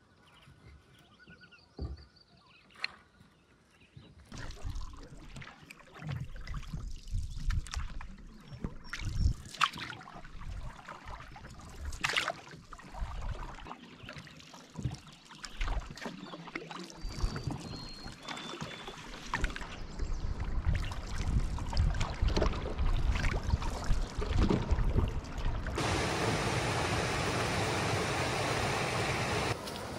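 Canoe paddling: a wooden paddle splashing and dripping in calm water, with scattered knocks. Near the end a steady, loud rush of noise takes over.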